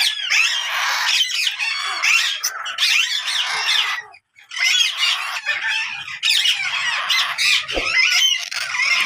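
Parrots squawking, many harsh overlapping calls at once, with a short break about four seconds in before they resume.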